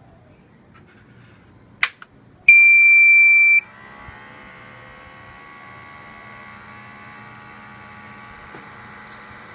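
A security-camera DVR powering up: a click, then a loud electronic beep lasting about a second. After the beep, the DVR's stock cooling fans and hard drive run with a steady whir and hum; the owner finds these stock fans too loud, and one of them rattles.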